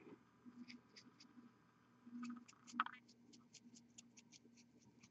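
Faint, quick scratching strokes of a fine paintbrush on a painted miniature, about four a second from the middle on, with one sharper click a little before three seconds in.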